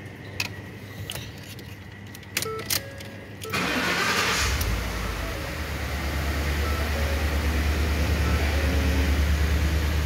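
2014 Ford F-150 engine starting: a few sharp clicks, then about three and a half seconds in the starter cranks briefly and the engine catches and runs at a steady idle. It is the sign that the no-start fault has been cured.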